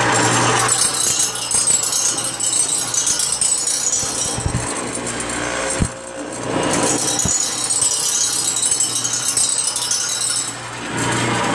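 Reel grinder sharpening a greens mower's cutting reel: the spinning reel blades grind against the abrasive wheel in a loud, rattling metallic hiss. The grinding breaks off briefly about six seconds in and again near the end, leaving the steady hum of the grinder's motors.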